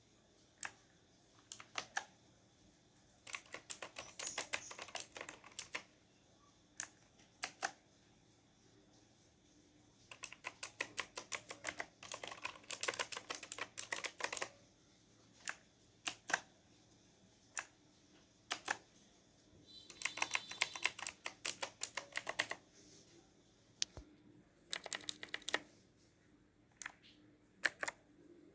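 Blue-switch mechanical keyboard (Mumre Wrangler K100) being typed on: sharp clicky keystrokes in fast flurries lasting a couple of seconds, separated by pauses and a few single key presses.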